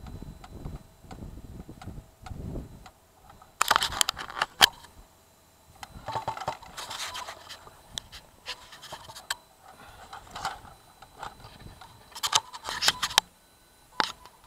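Handling noise on a handheld camera: irregular bursts of scraping and crackling, the loudest about four seconds in and again near the end, with a low rumble in the first few seconds.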